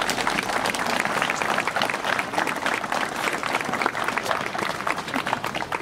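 A crowd applauding, many hands clapping densely and steadily.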